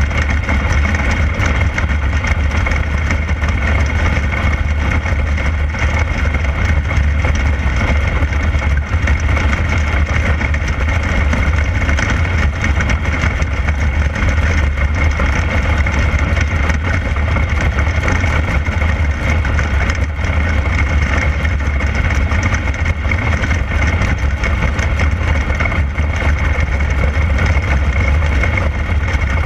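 A 360 sprint car's V8 engine running at racing speed, heard from on board the car. It makes a steady, deep drone with no big swings in revs.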